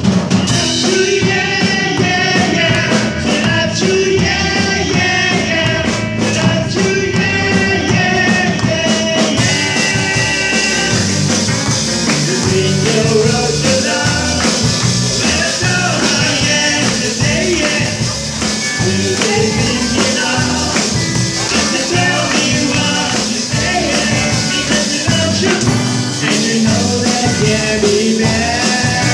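Live rock band playing a song: electric guitars, drums and a male lead vocal, coming in abruptly at the very start.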